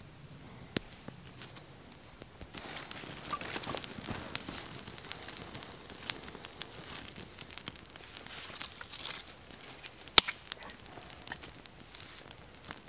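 Small fire of bark and thin twigs crackling while twigs are rustled and laid onto it, with scattered sharp snaps; the loudest snap comes about ten seconds in.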